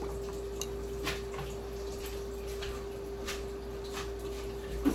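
A person sipping and swallowing a drink: a few small, soft wet clicks over a steady hum.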